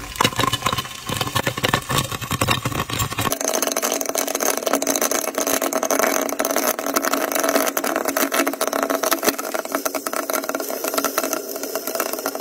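Crab and corn kernels cooking in oil in a covered clay pot, giving a steady, dense sizzling crackle. The low rumble under it drops away about three seconds in.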